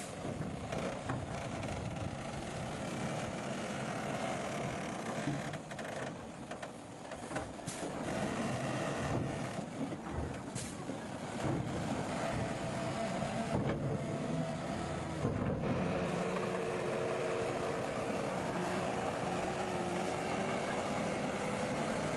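Heavy road-construction machinery running, a steady diesel engine drone with a few sharp metallic clanks in the first half; the engine note grows steadier and louder about two-thirds of the way in.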